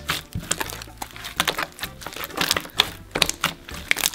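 Hands squeezing and kneading clear slime, making a rapid, irregular series of sharp clicks and crackling pops.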